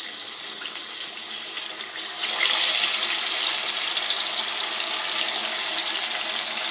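Masala-marinated fish pieces frying in hot ghee: a steady sizzle that gets louder about two seconds in.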